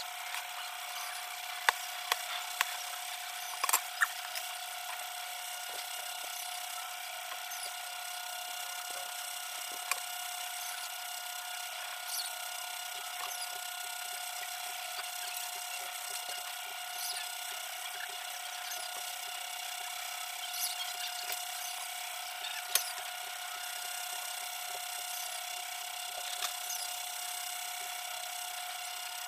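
A cleaver knocks sharply on a plastic chopping board a few times in the first four seconds as the papaya is cut. After that a metal spoon softly scrapes and ticks as it scoops out papaya seeds, with an odd louder click. A steady high-pitched hum runs under it all.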